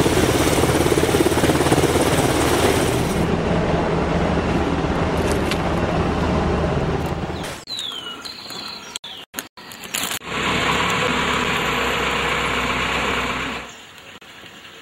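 Military helicopter flying in low and close, with a steady rotor and engine noise that cuts off suddenly after about seven and a half seconds. A few short bird chirps follow, then a second stretch of steady noise from about ten seconds in until shortly before the end.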